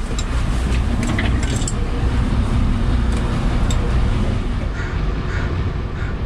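Boat engine idling, a steady low rumble, with a few light metallic clinks in the first couple of seconds.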